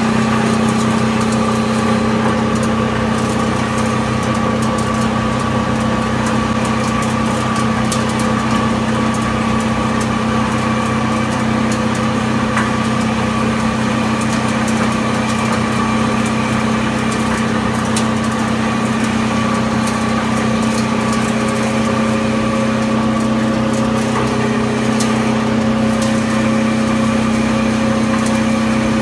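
PP/PE film agglomerator running: a loud, steady machine hum at a constant pitch, with a few faint ticks scattered through it.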